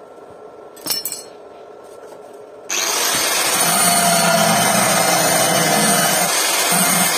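A short metallic clatter about a second in, then an angle grinder with a thin cut-off disc starts up suddenly about two and a half seconds in and runs loud and steady, cutting through a steel plate.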